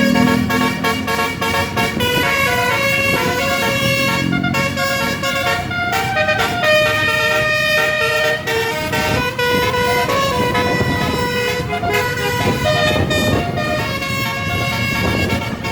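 A bus's Basuri musical horn playing a melody, its loud pitched notes changing every fraction of a second without a break.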